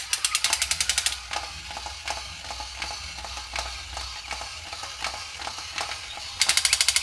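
Rapid ratchet-like clicking, about a dozen sharp clicks a second, in a burst at the start and again near the end, with scattered softer clicks in between.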